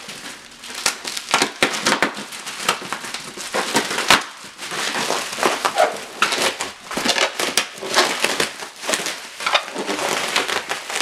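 Bubble wrap being handled and pulled apart: crinkling plastic with many irregular sharp pops and snaps, one especially loud about four seconds in.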